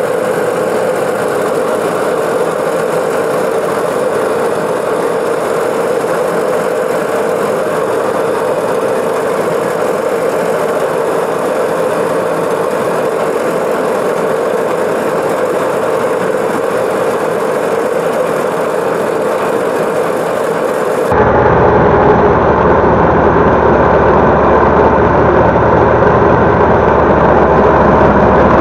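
Zero-turn riding mower's engine running steadily at mowing speed as it cuts pasture grass. About 21 seconds in the sound abruptly becomes louder and deeper.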